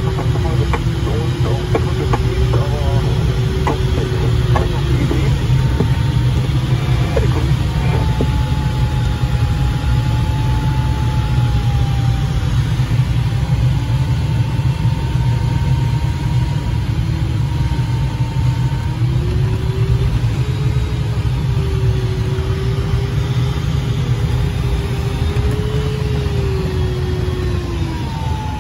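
Steady rush of airflow around the cockpit of a Twin Astir glider in flight, low and even, with a thin tone sliding slowly up and down in pitch over it.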